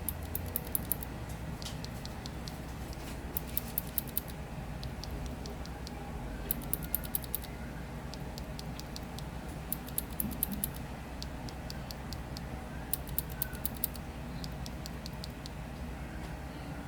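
BSUN plastic mechanical keyboard switches being pressed in quick runs of about five sharp clicks, with pauses of a second or two between runs, over a steady low hum.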